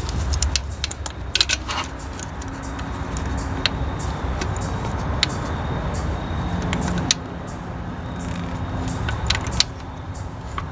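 Metal tools clinking and clicking irregularly against the pivot and adjustment bolts in the engine bay while the adjustment bolt is being loosened, over a steady low background hum.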